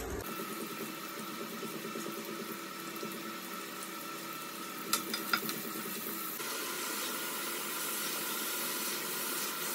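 Onions sizzling as they fry in hot oil in a pot on an induction cooktop, a steady hiss. A few clicks of a plastic slotted spoon against the pot come about five seconds in, and the sizzle gets a little louder about six seconds in.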